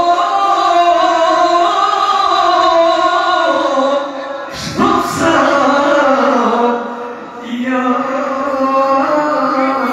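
A man singing into a microphone through a PA system, holding long, drawn-out notes. The singing breaks off briefly about four and a half seconds in, with a short sharp sound at the break, and dips again around seven seconds.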